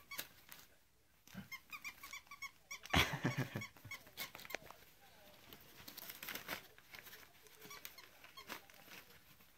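Small white dog making excited noises at a new toy: a quick run of short, high whines, then a louder outburst about three seconds in.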